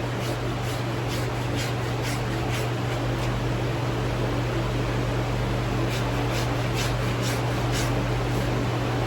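Farrier's rasp scraping a trimmed hoof in short quick strokes, about three a second, in two runs: one at the start and one about six seconds in. A steady low mechanical hum runs underneath.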